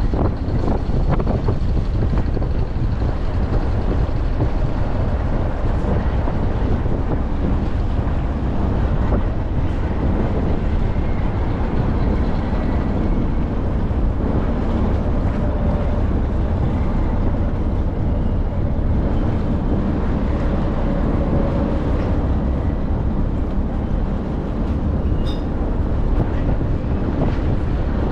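Tour boat under way, its engine running with a steady low drone, with wind buffeting the microphone.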